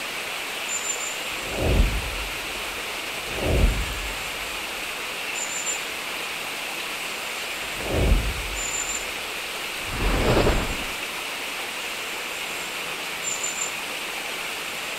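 Steady hiss of rain with four short, low rolls of thunder spread through it.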